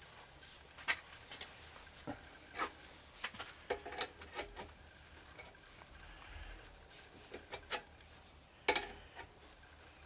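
Scattered metallic clicks and creaks from a wrench turning the forcing screw of a homemade puller clamped on a washing-machine motor shaft, with a brief squeak a little after two seconds in and the sharpest click near the end.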